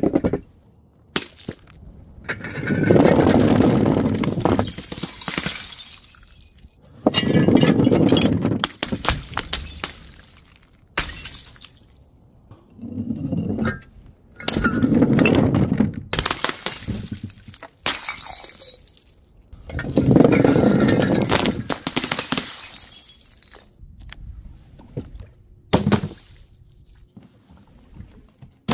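Glass bottles dropped from height and shattering on hard ground, several times over, each loud crash trailing off into pieces of glass clattering and tinkling.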